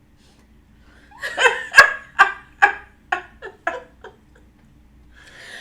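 A person laughing: a run of about eight bursts, loud at first and trailing off, followed by a short breathy sound near the end.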